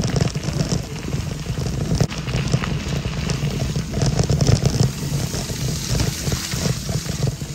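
Wind buffeting the microphone of a moving camera, with bicycle tyres rolling and hissing on a wet paved path.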